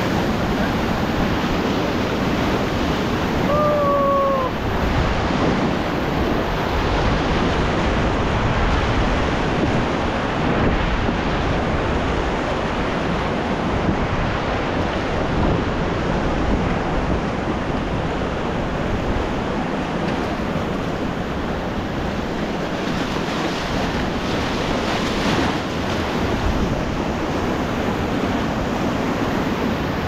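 Rushing whitewater of a river rapid churning around an inflatable raft, a steady, loud roar, with wind on the microphone.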